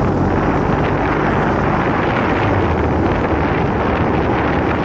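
Heavy wind noise on the microphone of a motorcycle under way, with the engine running steadily underneath.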